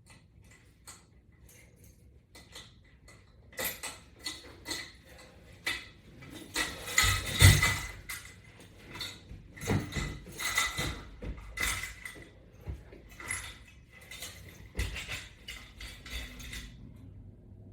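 Resistance-band latch bar and strap hardware being handled and fitted: a long run of irregular metal clicks, clinks and knocks, with a heavier thump about seven seconds in.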